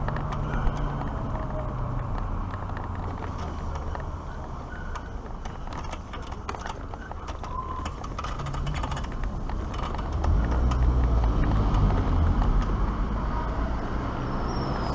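Wind noise on the microphone and tyre noise from a Black Tea Bonfire X electric motorcycle rolling along, with no engine sound. The low rumble grows louder about ten seconds in as the bike rolls slowly over brick paving.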